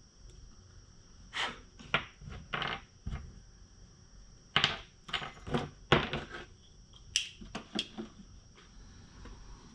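Small fishing jigs, line and tools being handled on a wooden workbench: an uneven run of short clicks, taps and rustles, some in quick clusters.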